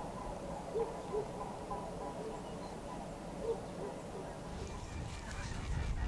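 A flock of waterfowl honking in flight: scattered short calls from many birds, with a low rumble building near the end.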